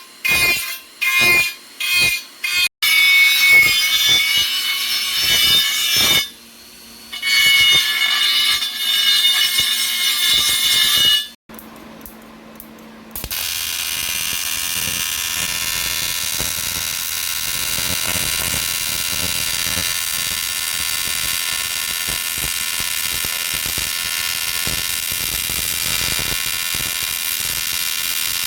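A power tool running in a rim-repair workshop: short pulses at first, then a continuous high-pitched whine with a brief break, a short lull, and then a steady, even run.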